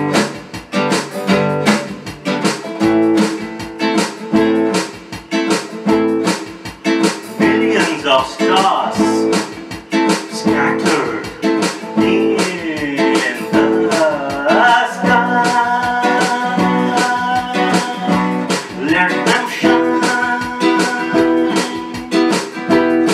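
Background music: a song driven by briskly strummed acoustic guitar, with a melody line gliding over it from about a third of the way in.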